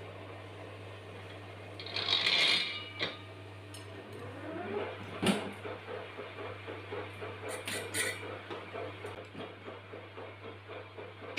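Metal lathe with a motorcycle wheel clamped in its chuck: a metallic clatter about two seconds in, then the lathe spins the wheel up with a rising whine, a sharp click, and runs on with a steady, evenly pulsing tone over a low hum.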